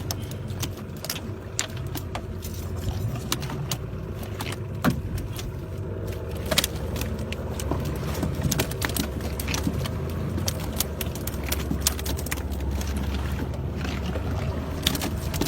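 Boat engine running steadily as a low hum, with many scattered sharp clicks and knocks over it.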